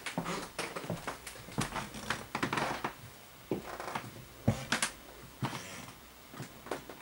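Footsteps on a hardwood floor with rustling handling noise: irregular soft knocks and clicks, about one or two a second, with brief rustles between them.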